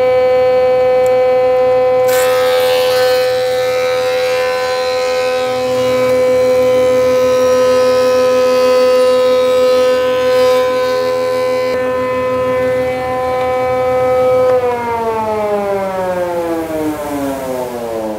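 Benchtop thickness planer running with a steady high motor whine, its cutterhead cutting a laminated white oak boat stem for about ten seconds starting some two seconds in. Near the end the machine is switched off, and the whine falls steadily in pitch as it spins down.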